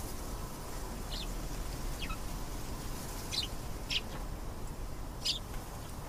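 Domestic canary giving short, separate chirps, about five spread over the few seconds rather than a continuous song, over a steady low background hum.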